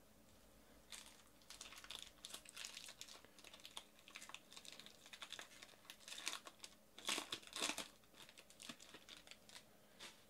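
Foil trading-card pack wrapper crinkling and tearing as it is ripped open by hand, in a run of irregular crinkles. The loudest tear comes about seven seconds in.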